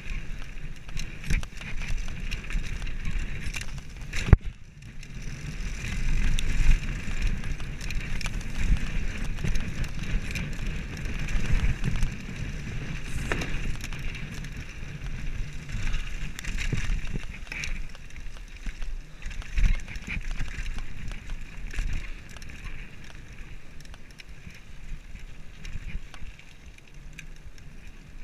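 Mountain bike riding down a dirt and gravel trail: tyres rolling and crunching over the surface, with the frame rattling and knocking over bumps and wind rumbling on the microphone. A sharp knock comes about four seconds in.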